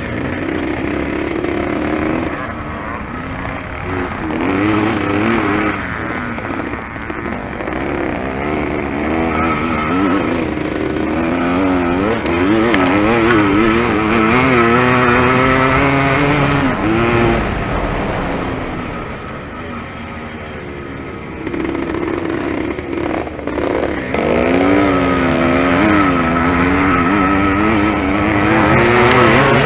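Motocross bike engine heard from on board during a race, revving hard and rising and falling in pitch as the throttle is worked over the rough track; it eases off for a couple of seconds past the middle, then pulls hard again.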